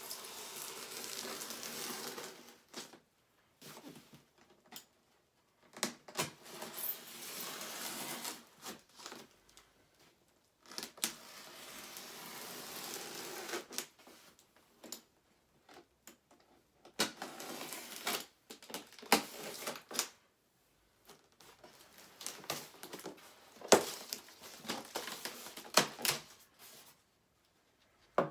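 Cardboard box packaging being handled and pulled apart: rubbing and scraping in stretches of a few seconds, with scattered knocks and clicks between them.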